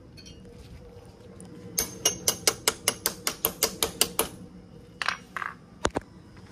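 Starter solenoid chattering in a quick run of even clicks, about six a second, for a couple of seconds as the key is turned: the battery is too drained to crank the engine. A single sharp knock follows near the end.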